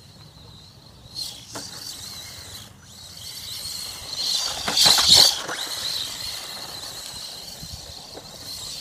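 LaTrax SST radio-controlled short-course truck with a brushless motor driving over the dirt track. It gets loudest about five seconds in as it slides past, its tyres spraying dirt and gravel, over a steady high whine.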